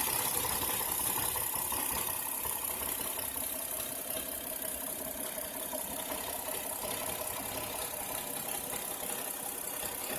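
2007 Hyundai Santa Fe V6 engine idling slightly rough, with a clicking sound that appeared after a spark plug change; the owner suspects a vacuum line.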